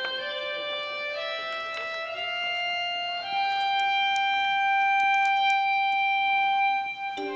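Background music: a slow melody of long held notes, one held for about four seconds in the middle.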